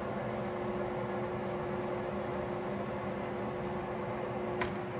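South Bend 400 16" lathe running under power with the threading feed engaged: a steady hum with a constant whine from the gearing. One sharp click comes near the end.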